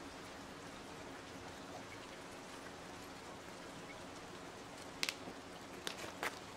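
Steady hiss of rain. A few sharp cracks break in about five seconds in and again near the end.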